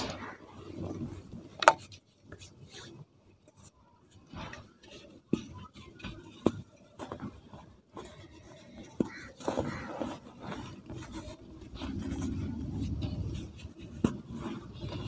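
Hands crushing crumbly cement chunks in a bowl of dry cement powder: a soft crunching and sifting, with occasional sharp clicks and knocks. The crunching is thickest near the end.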